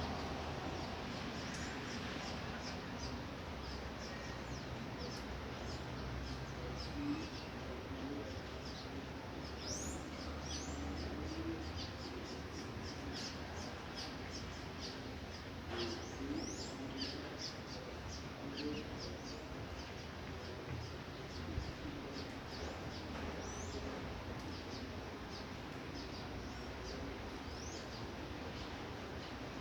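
Steady light rain with a low, distant rumble of thunder that eases off after the first dozen seconds, while small birds chirp repeatedly with short, high notes.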